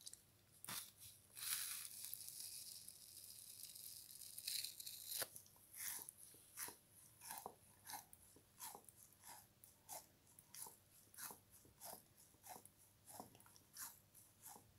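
Frozen sponge crunching as it is worked by hand: a dense crackle for a few seconds, then sharp separate crunches a little under two a second.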